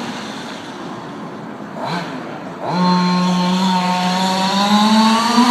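Radio-controlled car's motor whining as the car is driven: the whine drops away at the start, gives a short blip about two seconds in, then comes back strongly and climbs slowly in pitch as the car speeds up.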